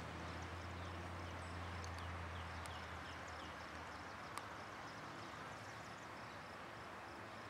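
Faint outdoor ambience: a low steady hum that fades away over the first three seconds, under a light hiss, with a short run of small falling chirps and a few sharp clicks.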